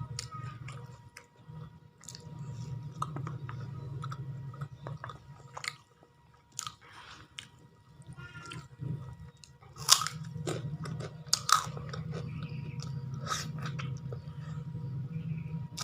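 Close-up chewing of crunchy food, a steady wet chewing sound broken by several sharp crunches, the loudest about ten seconds in.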